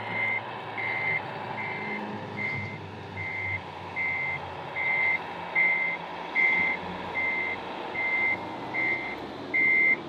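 Reverse warning beeper of a radio-controlled Mercedes-Benz tipper truck's sound module, a steady high beep repeating a little faster than once a second as the truck backs up, over the module's steady engine running sound.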